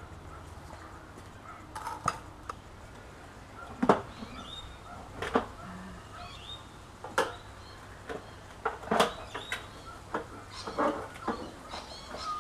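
Scattered sharp knocks and clunks as intercooler piping and its couplers are worked loose and handled in a car's engine bay.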